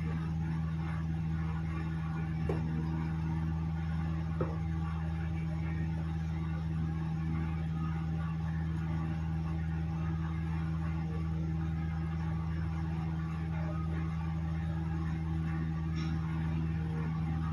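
Steady low hum with a few constant tones, with two faint clicks a few seconds in as small parts of the phone are handled.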